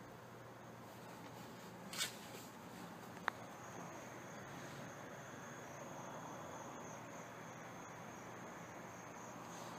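Quiet room hiss, with a brief rustle about two seconds in and a single sharp click a second later, then a faint steady high-pitched whine.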